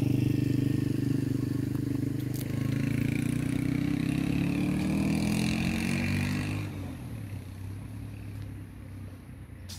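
A passing engine hums, its pitch rising slightly, then fades away about seven seconds in. A short sharp click comes near the end.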